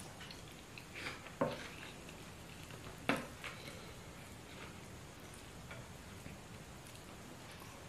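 Eating by hand: fingers tearing banku and scooping pepper sauce on a plate, with soft chewing and mouth sounds and two sharp clicks about a second and a half apart.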